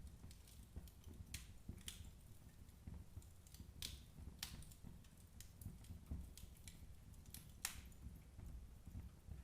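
Firewood burning in a fireplace, crackling: irregular sharp pops and snaps over a low rumble of flame, with one louder snap near the end.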